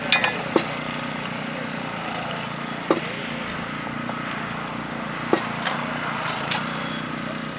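Small engine running steadily, with several sharp knocks over it, the clearest about three seconds in and two more near the end.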